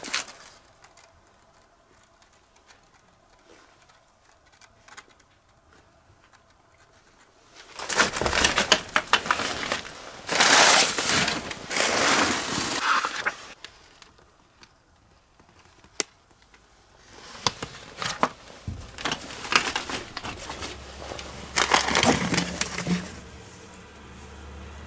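Rustling and crunching in two bouts of several seconds each, with a single sharp click between them.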